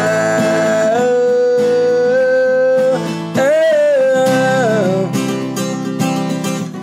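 Acoustic guitar being strummed, with a man's voice holding long sung notes over it. The voice breaks off briefly about three seconds in and stops about five seconds in, while the strumming goes on.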